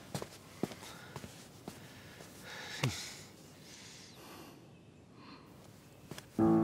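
Quiet ambience with a few faint clicks and a short breathy exhale about three seconds in. Background music with sustained notes starts just before the end.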